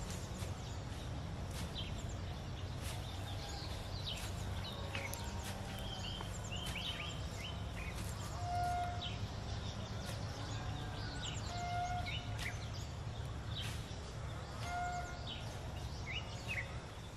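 Outdoor ambience of small birds chirping with many short, quick calls, and a short clear whistled note three times about three seconds apart, over a steady low rumble.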